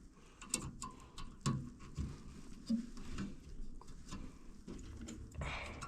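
Scattered light clicks, taps and rustling of hands handling parts and wiring while hooking up a furnace's inducer motor, with a brief rustle near the end.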